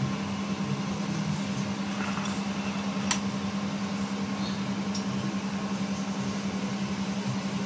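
Steady low mechanical hum with an even hiss, and a faint click about three seconds in.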